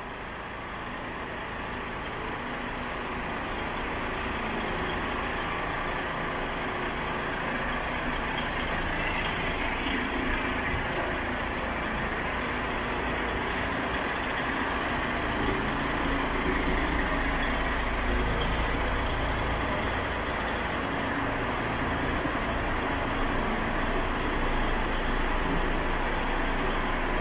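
Paccar MX-510 diesel engine of a DAF XF105 tractor unit idling steadily.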